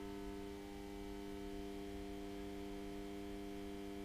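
Steady electrical hum at a low level, several unchanging tones held without a break.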